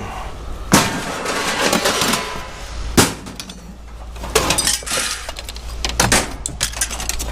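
Scrap being thrown out and landing: a sharp crash about a second in and another at three seconds, then a run of clattering, clinking and breaking crashes.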